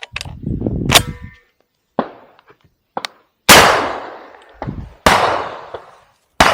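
Shotguns firing at doves in flight: several reports from more than one gun. Fainter, shorter pops come early on, then three loud blasts about a second and a half apart, each with a long fading echo.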